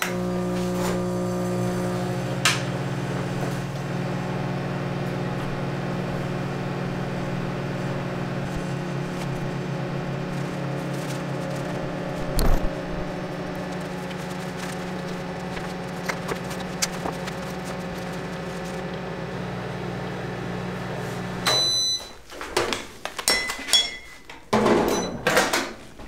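Microwave oven running with a steady electrical hum while heating a mug of water, cutting off about 21 seconds in. A few short high beeps follow, then clicks and knocks as the door is opened.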